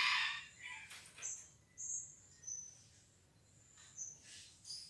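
Sogon (a small woodpecker kept as a cage bird) calling: a few short, very high-pitched chirps in a loose series, with a pause in the middle. A louder, lower call fades out in the first half second.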